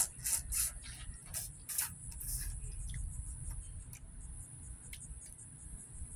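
Close eating sounds from boiled blue crab: a run of short wet sucks and smacks as meat is pulled off the shell with the mouth in the first couple of seconds, then a few fainter chewing and shell-picking sounds. A steady high hiss lies underneath.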